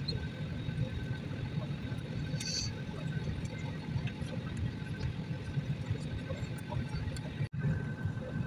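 Steady low rumble of an Airbus A320 cabin on the ground, with a faint steady whine over it. A brief high chirp comes about two and a half seconds in, and the sound drops out for an instant near the end.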